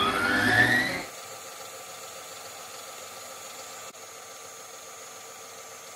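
Electric stand mixer beating butter and sugar: the motor's whine rises in pitch as it speeds up. About a second in the sound drops abruptly to a quieter, steady hum and hiss.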